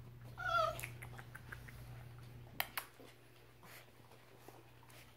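A puppy gives one short, high, wavering whine, about half a second long, near the start. A few faint clicks and taps follow.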